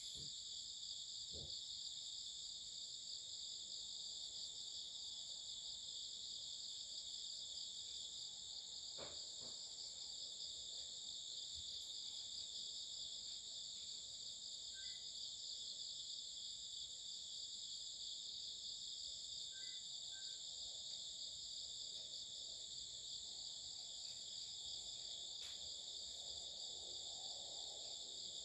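Night chorus of many insects trilling continuously together, in two steady layers, one higher-pitched than the other.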